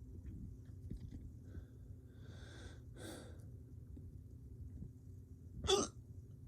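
A man breathing in and out audibly, then one short, sharp hiccup near the end.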